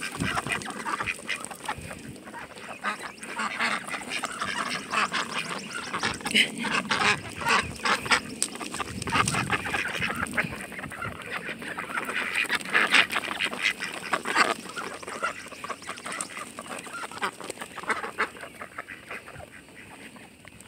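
A flock of ducks quacking in a continuous busy chatter of short calls, growing fainter near the end.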